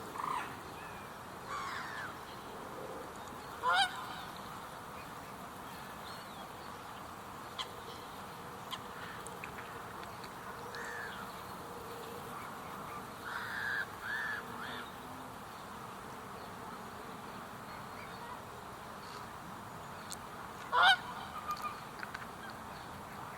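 Common moorhen calling: two loud, short, rising calls, one about 4 seconds in and one near the end, with fainter short calls in between over a steady background hiss.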